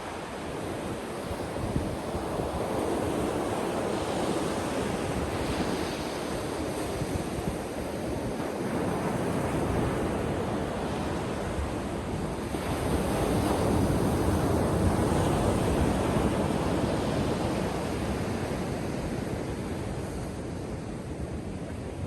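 Ocean surf breaking and washing onto a beach in a continuous rush, swelling louder twice as waves come in, with some wind rumble on the microphone.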